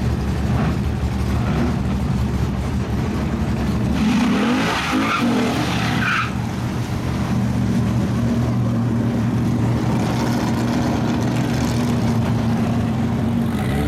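Drag cars' engines running at the start line, a steady low drone. About four seconds in, a brief squeal of spinning tires lasts about two seconds.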